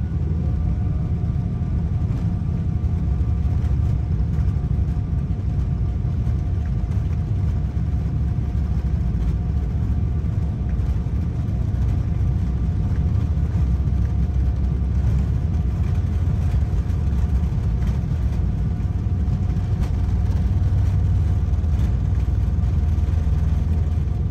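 Boeing 777 jet engines at take-off power, heard inside the passenger cabin: a loud, steady, low rumble with a thin, steady whine above it.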